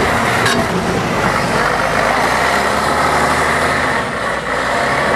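Double-decker bus's diesel engine running as the bus drives past close by and pulls away, a steady loud engine note with a brief dip about four seconds in.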